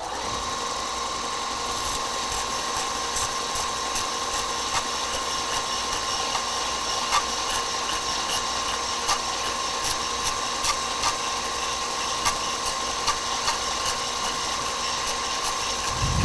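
Belt sander running steadily while sanding a wooden hammer handle down to size, with a steady whine and faint regular ticks over its hiss.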